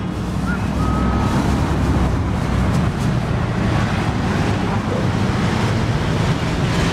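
Steady rushing noise of road traffic going past, with a low engine hum underneath.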